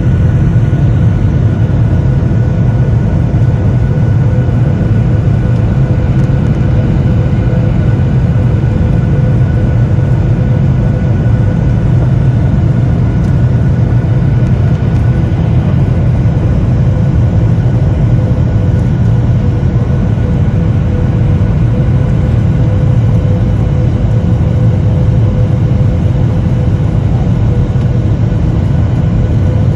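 Airliner cabin noise while landing: a loud, steady jet-engine rumble with a constant high whine over it.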